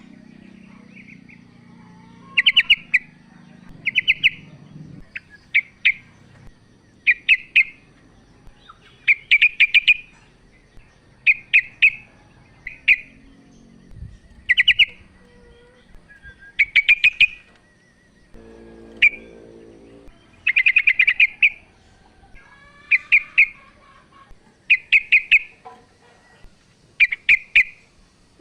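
Female yellow-vented bulbul (trucukan) calling: short bursts of rapid chattering notes repeated every second or two. This is the female's call to males, used as a lure.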